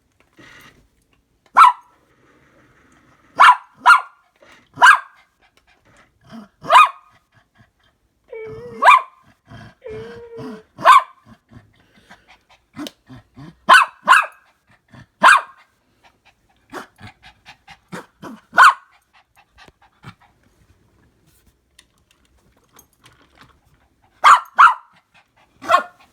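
A dog barking: single sharp barks and quick pairs at irregular intervals, about fourteen in all.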